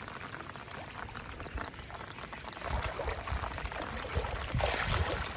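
Water pouring and running steadily, with low rumbling knocks joining in during the second half.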